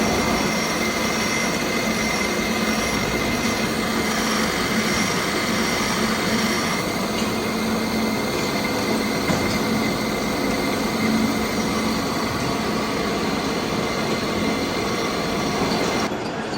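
Large lathe turning a heavy steel shaft, running steadily with a high squealing whine from the cutting tool on the metal.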